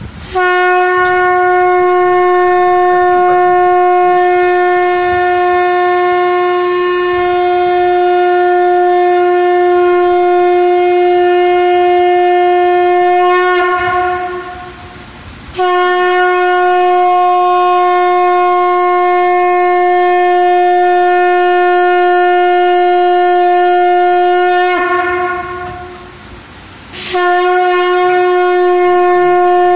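Conch shell (shankha) blown in three long blasts, each held on one steady pitch, with short pauses for breath between them.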